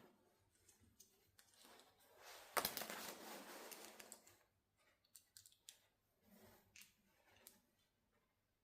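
Faint clicks and taps from handling an XDYY Kraken V3 steel balisong butterfly knife. About two and a half seconds in comes a sharper click followed by a brief rustle, then a string of small clicks.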